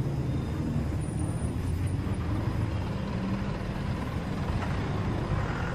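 A van and trucks driving past with their engines running: a steady low engine sound with road noise.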